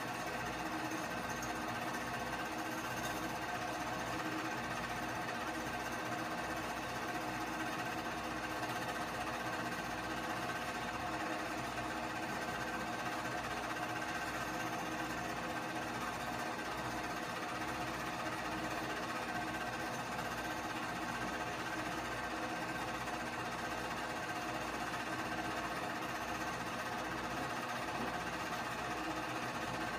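Keystone K-502 8mm movie projector running steadily: a constant mechanical whirr and rapid clatter of its motor and film-advance mechanism.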